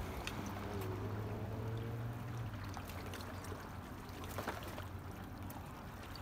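Running, splashing water, with a low steady hum that fades out about two and a half seconds in and a single sharp click near the end.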